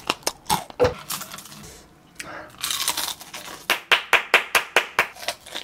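Crisp flour-battered fried chicken crust crackling: a few sharp cracks, a short rustle, then a quick run of sharp cracks about five a second near the end.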